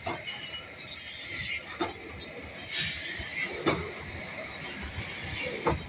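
Steam tank locomotive moving slowly past at close range, with a steady hiss of steam and a few irregular clanks and knocks spaced a second or two apart.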